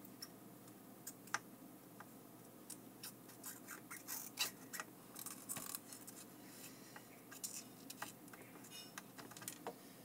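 Faint scattered clicks and scratching of small metal tools against a circuit board as a heated 6x6 mm surface-mount push-button switch is worked loose and lifted off.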